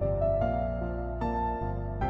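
Background music of held notes, moving to a new chord about every half second.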